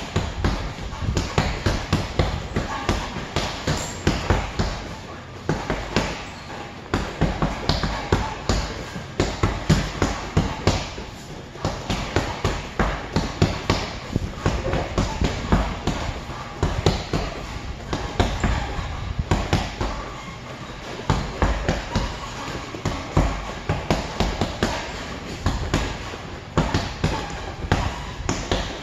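Hanging heavy punching bag struck in fast flurries of punches: repeated sharp thuds several times a second, with short pauses between combinations.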